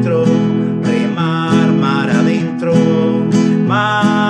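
Intro music led by a strummed acoustic guitar.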